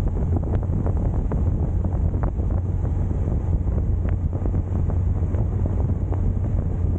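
Wind buffeting the microphone: a steady low rumble with a few faint clicks.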